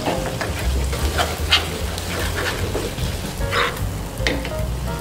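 Background music over a metal spoon scraping and stirring thick spice paste in a frying pan, with light sizzling; a few short scrapes stand out.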